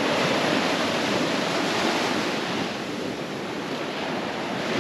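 Small waves breaking and foam washing over the sand at the water's edge: a steady rush that eases a little midway.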